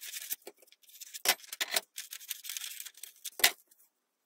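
Sheets of printer paper rustling and crackling as they are handled and laid flat on a wooden board, with two sharper crackles or taps, about a second in and near the end.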